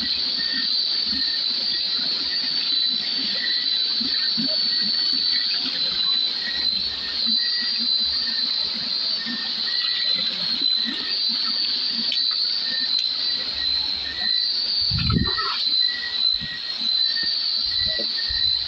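Night insect chorus: a steady high-pitched trill, with a second caller chirping about once a second. Low knocks and a louder bump about fifteen seconds in come from footsteps and handling among rocks and water.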